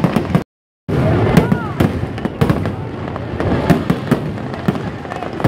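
Aerial fireworks bursting in quick succession, a dense run of bangs and crackles, with voices of onlookers underneath. The sound drops out completely for a moment about half a second in.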